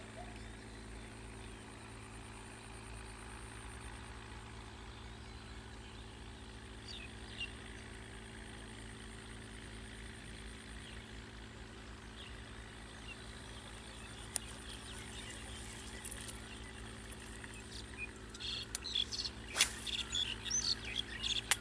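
Outdoor ambience: a steady low hum under a faint even hiss, with small birds chirping from near the end and a couple of sharp clicks.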